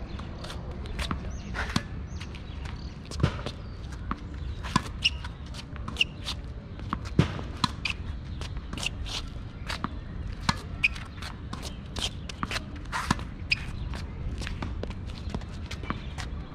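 A tennis rally: sharp pops of rackets striking a tennis ball and the ball bouncing on asphalt, irregularly spaced a half second to a second apart, some strikes with a brief ringing ping of the strings, mixed with shuffling footsteps.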